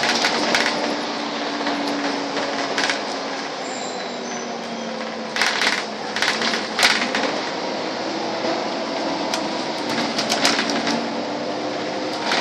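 Inside a moving Volvo double-decker bus: steady engine and road noise with a droning engine note that shifts in pitch, broken by bursts of sharp rattling, loudest about five and a half to seven seconds in and again around ten seconds in.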